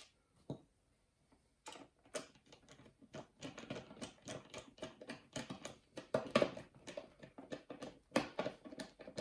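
Self-tapping screw being driven into a 3D-printed plastic plate with a hand screwdriver: a rapid, irregular run of small clicks and creaks, starting just under two seconds in.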